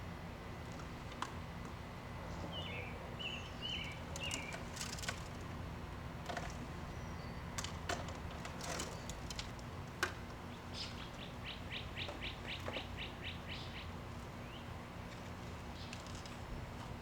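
Wild birds chirping: a few short chirps about three seconds in, then a quick trill of about a dozen notes around the middle, with scattered sharp ticks over a low steady background rumble.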